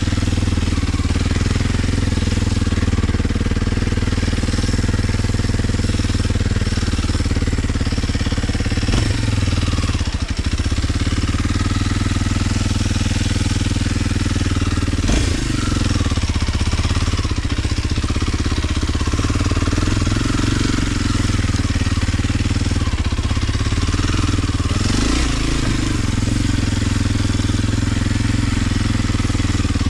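Kawasaki KLX 230 dirt bike's single-cylinder four-stroke engine running at low, steady revs, with only brief small changes in its note a few times.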